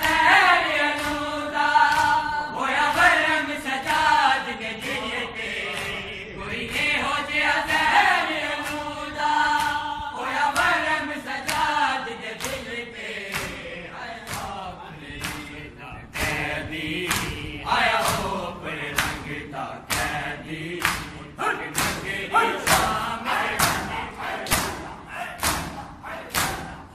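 Male voices chanting a Punjabi noha over the rhythmic slaps of bare-handed chest-beating (matam). About halfway through the chanting thins out, and the slaps carry on, coming closer together near the end.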